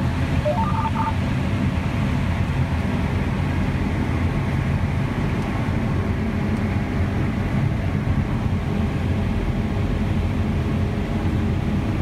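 John Deere S780 combine harvesting corn, heard inside the cab: a steady, loud drone of the 13.5-litre engine and threshing machinery under load. A few short electronic beeps sound about half a second to a second in.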